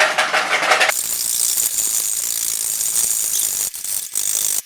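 Egg whites being whisked in a bowl: a fast, continuous rattling of the whisk that settles into an even, steady texture about a second in, with a couple of brief breaks near the end.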